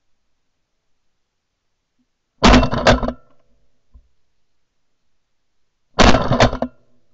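Shotgun blasts at incoming geese in two volleys, about two and a half seconds in and again about six seconds in, each holding a couple of shots close together.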